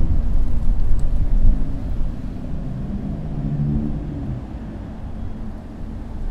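Street traffic with a motor vehicle engine rumbling past. The deep rumble is loudest in about the first second and a half, and an engine note rises and falls around the middle.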